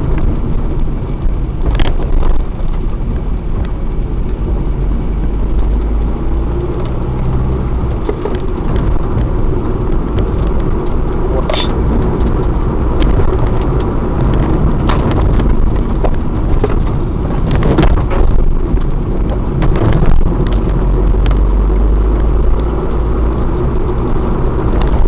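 Vehicle driving along a road, a steady low rumble of engine and road noise, with scattered sharp knocks and clicks.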